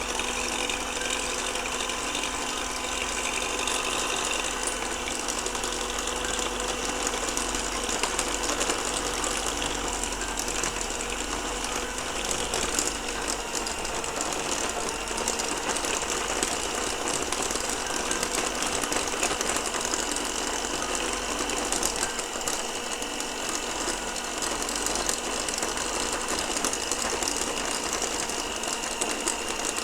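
Electric mixer running steadily with a gear whir, whipping egg whites into Italian meringue while hot sugar syrup is added.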